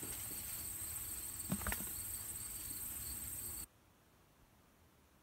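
Steady outdoor insect chorus, a constant high-pitched drone with a faster pulsing trill beneath it. There is one short knock about a second and a half in. The sound cuts off abruptly near the end into near silence.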